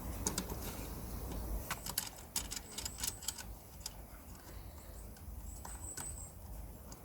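Lawnmower handle screws being unscrewed by hand: a scatter of small clicks and knocks, most of them in the first half, with a few brief thin high squeaks.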